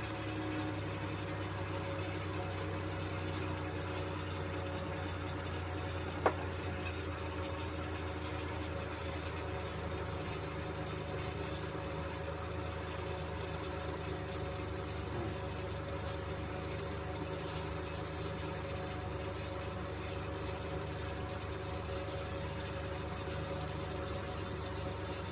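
Suzuki Scrum's carbureted engine idling steadily after a carburetor overhaul. A sharp click comes about six seconds in, with a fainter one just after.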